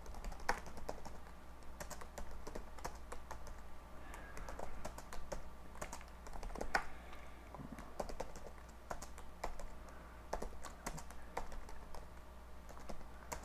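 Typing on a computer keyboard: irregular key clicks at an uneven pace, over a steady low hum.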